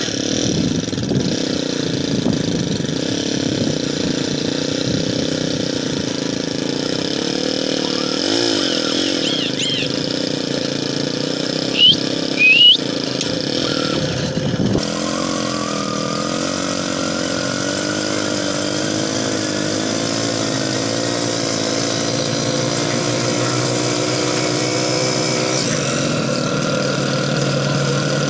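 Honda CD 70 motorcycle's small single-cylinder four-stroke engine running steadily under load, belted from its rear wheel to a thresher and driving it. Two brief, high rising squeaks come about twelve seconds in.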